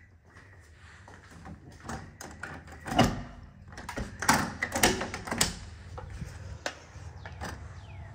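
A sliding glass door being unlatched and slid open, with a run of sharp clacks and knocks from the latch and frame, the loudest about three seconds in.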